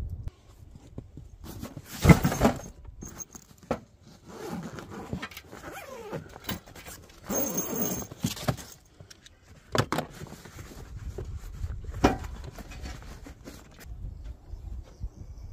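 Camp cooking gear and food packaging being handled: a few separate knocks and clinks, the loudest about two seconds in, with a stretch of rustling and scraping in the middle.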